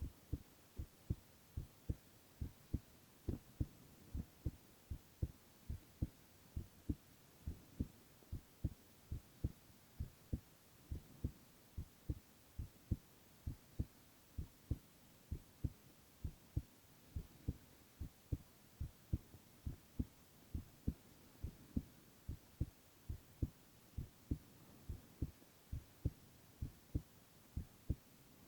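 A young man's heartbeat heard close up: steady low thumps, about two a second, repeating evenly.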